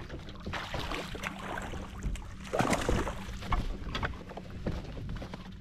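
Water splashing and sloshing against a fishing kayak, with small knocks and rattles on the hull, and a louder splash about two and a half seconds in.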